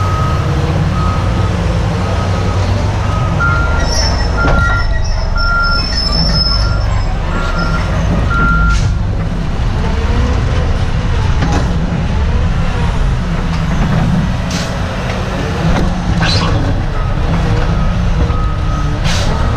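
Cat 966M wheel loader's diesel engine running steadily, with its reversing alarm beeping at an even pace for the first several seconds and again near the end, and a few sharp knocks in between.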